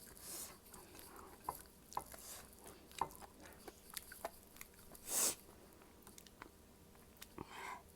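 Close-up mouth sounds of a person eating: chewing with scattered wet clicks and smacks, and one short, louder noisy burst about five seconds in.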